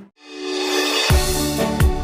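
Background music: after a short break, a sound swells in, and about a second in an electronic beat with a deep kick drum starts.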